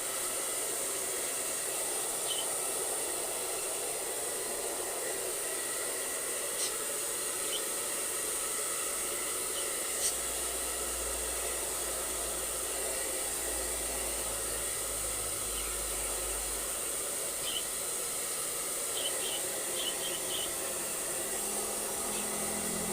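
Pet blower dryer running steadily, a constant rushing hiss of air as it dries a husky's coat after a bath.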